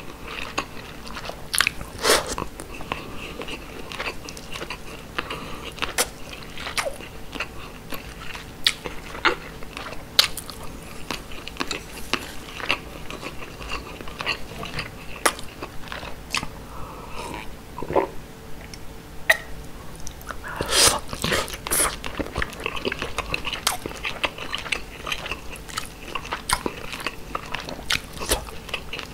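Close-miked chewing of grilled mackerel and white rice: wet mouth sounds with frequent sharp smacks and clicks, which come thickest about two-thirds of the way through.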